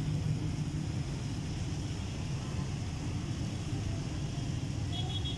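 Steady low rumble of road traffic, with a short high-pitched tone near the end.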